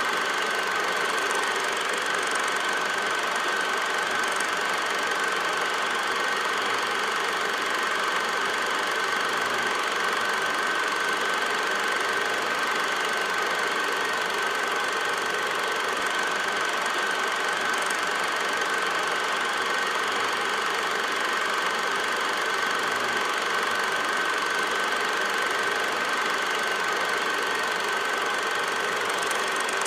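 8mm film projector running steadily, its motor and film mechanism giving an even mechanical noise with a constant high whine.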